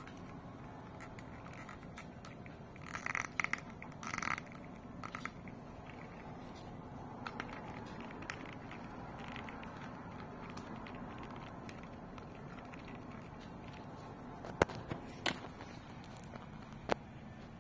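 Plastic toy and packaging being handled: faint crackling and rustling, two brief squeaks about three and four seconds in, and a few sharp clicks near the end.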